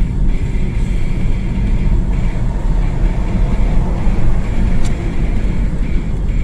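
Road and engine noise inside a moving car's cabin: a loud, steady low rumble.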